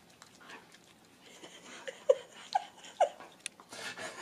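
Husky giving a few short, high whines or squeaks, the clearest three about half a second apart, while licking a man's face with small wet clicking sounds.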